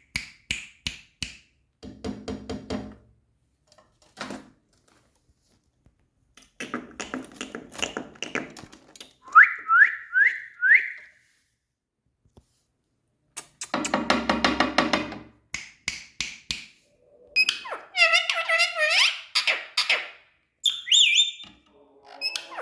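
Indian ringneck parrot whistling and chattering in short bursts, with four quick rising whistles in a row near the middle. Deeper, fuller bursts of sound are mixed in between the calls.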